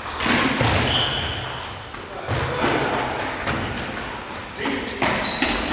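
Indoor football game in a reverberant sports hall: the ball thuds as it is kicked and bounces on the wooden floor, and sneakers squeak briefly on the floor several times, most densely near the end.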